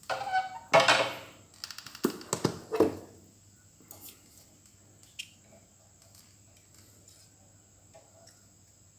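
Handling noise from a fishing rod's tip section being picked up and handled by hand: a rustle, a quick run of clicks and several sharp knocks in the first three seconds, then a few faint ticks as a metal caliper is set against the rod.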